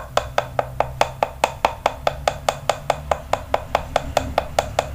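Rapid, even tapping, about five or six knocks a second, from the wooden stick holding a freshly latex-dipped soft-frog lure mould, tapped so the liquid latex spreads evenly over the mould and the excess drips off.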